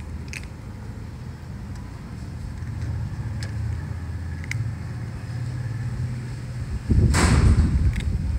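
A cat chewing dry kibble, with a few faint crunches over a steady low hum. About seven seconds in, a loud rushing noise takes over.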